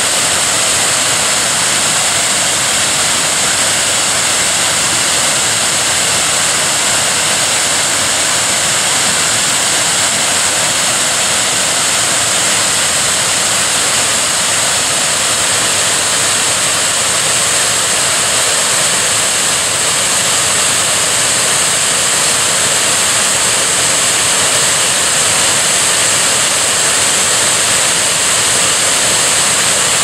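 Wide, low waterfall pouring over a rock ledge: a steady, loud rush of falling water with a strong hiss.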